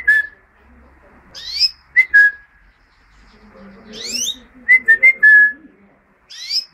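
Whistling to a pet European goldfinch: three short phrases, each a quick rising swoop followed by one or more short, level notes of about the same pitch, with pauses between them.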